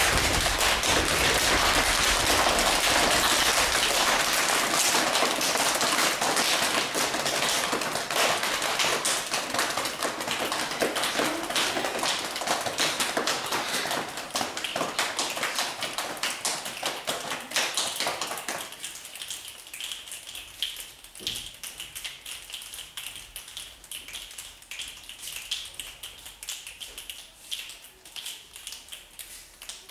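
A class of children making the sound of rain with their hands and bodies as the thunderstorm dies away: a dense patter of many taps that thins out. The low thuds stop about four seconds in, and about two-thirds through the patter drops sharply to light, quick finger clicks.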